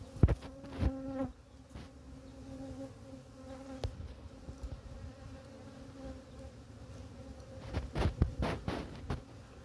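Honey bees buzzing in a steady hum around an opened wooden box hive, one buzzing louder at close range about a second in. A few knocks from the hive being handled come near the start and again near the end.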